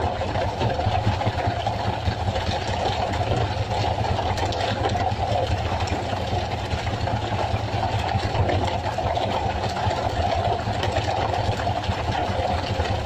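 Fishing boat's inboard engine running steadily, an even low drone.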